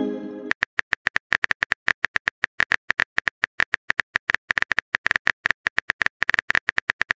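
Texting-app keyboard typing sound effect: a quick, uneven run of short, sharp clicks, several a second. It opens on the fading tail of a message-pop sound.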